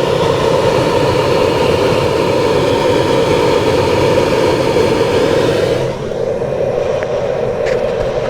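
Car AC blower fan running at full speed: a loud, steady rush of air with a hum. About six seconds in the hiss softens and the sound turns duller. The fan is noisy while little air reaches the vents, which the owner puts down to dust clogging the cabin air filter and the blower.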